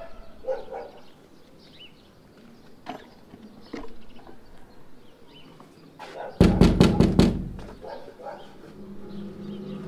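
A loud cluster of about five rapid thuds, heavy and low, about six and a half seconds in, over faint bird chirps. Near the end a steady sustained music chord comes in.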